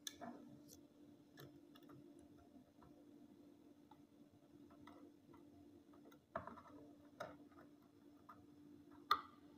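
Faint plastic clicks and taps of a USB plug being handled and fitted into a Raspberry Pi's USB ports, with a few sharper clicks in the second half, over a faint steady hum.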